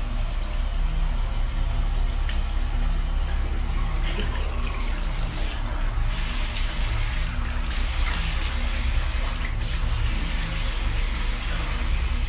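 Water running steadily from a tap into a sink, an even hiss over a low steady hum.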